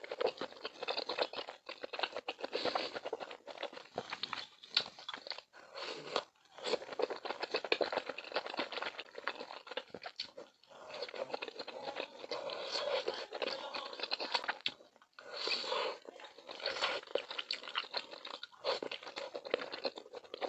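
Close-miked chewing and biting of a bowl of milk malatang (spicy hot-pot ingredients in a milky broth): a dense run of small wet mouth clicks, broken by a few short pauses.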